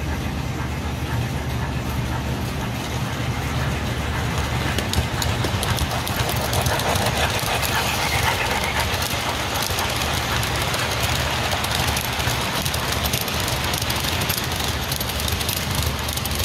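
O scale model train running past on the layout track: a steady low rumble of the wheels and motor, with a broad rattling hiss that grows louder in the middle as the freight cars roll close by.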